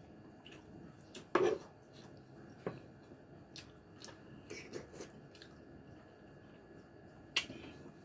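Close-up eating sounds of a person chewing soft, saucy braised pork (lechon paksiw): wet mouth smacks and a few sharp clicks, spaced irregularly. The loudest is a wet sound about a second and a half in.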